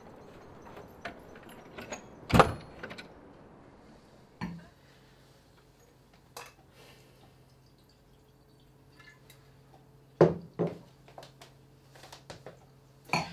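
A front door shutting with a loud thud about two seconds in, then knocks and clinks of kitchenware being handled at a counter, over a low steady hum that starts a few seconds in.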